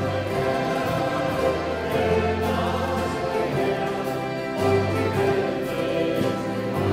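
Congregation singing the refrain of a Faroese hymn together, accompanied by accordions holding sustained chords and bass notes.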